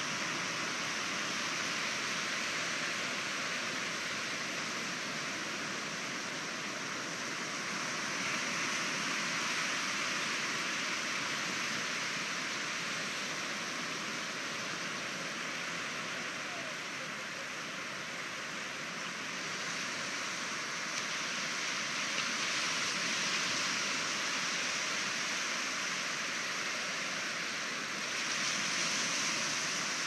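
Surf on a flat sandy beach: a steady hiss of small waves breaking and shallow water washing over the sand, swelling a little as each wave comes in.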